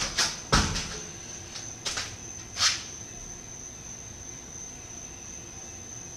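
Bare feet thumping on a concrete walkway as an aerial is landed, with the heaviest thud about half a second in and two quicker scuffs about two seconds later. A steady high-pitched insect drone, like crickets, runs underneath.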